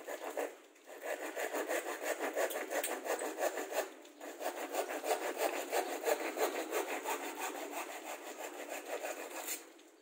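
Hand saw cutting through plywood in rapid, even back-and-forth strokes, with a short pause about four seconds in; the sawing stops shortly before the end.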